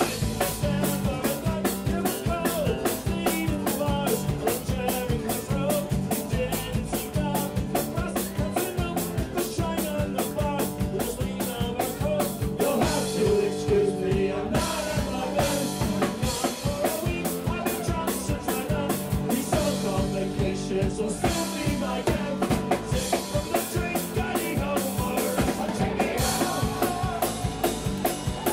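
Live band music: strummed acoustic guitar over a drum kit keeping a fast, steady beat.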